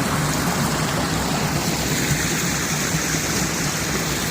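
River flowing, a steady rush of water with no breaks.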